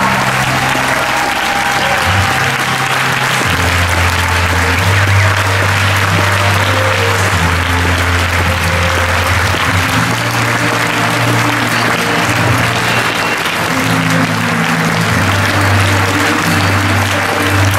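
An audience applauding steadily over music with long, held bass notes.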